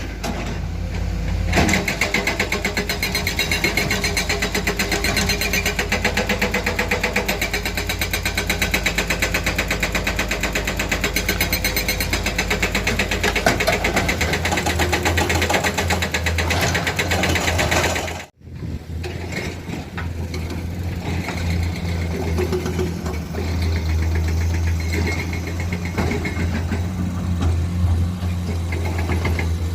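Diesel engines of heavy construction machinery running steadily with an even rapid chugging. There is a sudden break about two-thirds of the way through, after which the engine sound is deeper.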